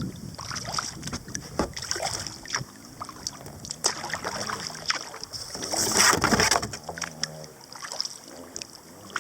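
Kayak being boarded and pushed off: scattered knocks and bumps on the hull and paddle, with a louder scraping rush about six seconds in.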